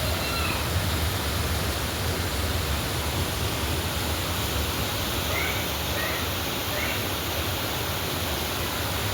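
Steady rainfall, an even, constant hiss of rain with no let-up. A few faint short chirps sound over it about five to seven seconds in.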